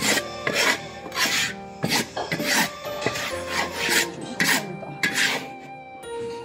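Metal spatula scraping flour across a dry iron wok in repeated rasping strokes, roughly one every half second, with a short lull midway.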